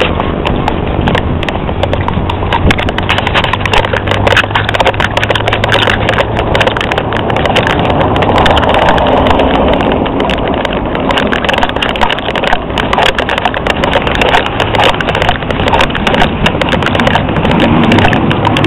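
Handling noise from a handheld camera being carried along: a loud, rough rumble on the microphone with irregular knocks throughout.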